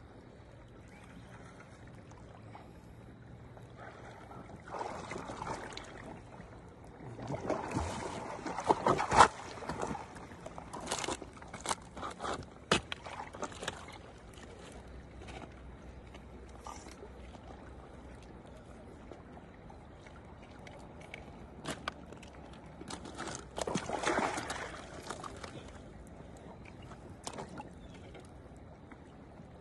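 Water splashing and sloshing at a rocky shoreline in irregular bursts as a tired, hooked striped bass is worked in to the rocks, with a few sharp knocks and scrapes. The splashing is loudest about eight to nine seconds in and comes again around twenty-four seconds.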